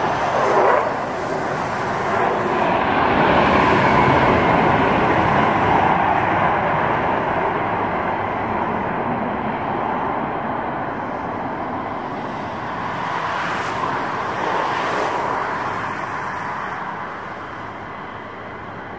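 Military fighter jet engines passing, a steady rushing noise that swells to its loudest a few seconds in, rises again briefly later, and fades away near the end.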